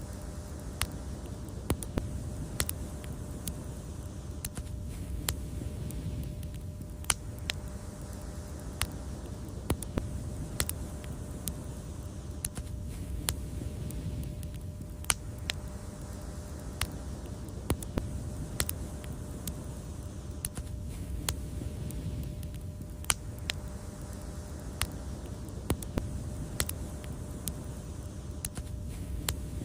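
Wood fire crackling: irregular sharp pops and snaps, about one or two a second, over a steady low rumble of the burning fire.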